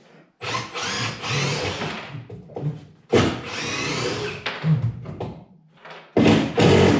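Power drill backing screws out of a wooden frame, running in three bursts of one to two seconds with a wavering motor whine.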